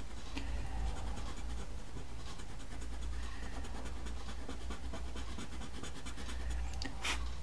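The hard red end of a pencil eraser rubs pastel off paper in quick, repeated short strokes, making a soft continuous scratching as the colour is lifted back to bare paper.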